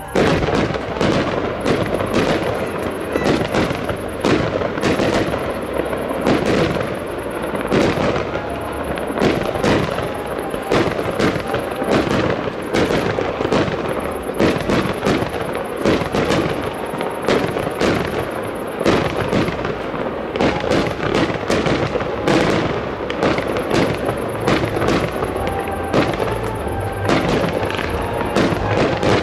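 Fireworks display: aerial shells bursting one after another, a dense run of bangs and crackle that never lets up.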